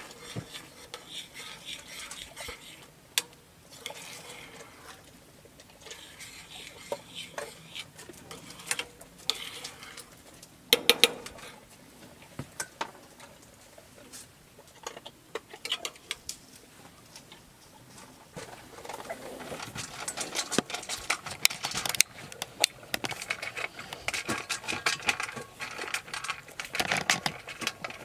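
Metal spoon stirring chili in a stainless steel saucepan, with scattered scrapes and clinks against the pan. From about two-thirds of the way in, a dense run of rapid crunching and clicking, a dog chewing dry kibble from a metal bowl.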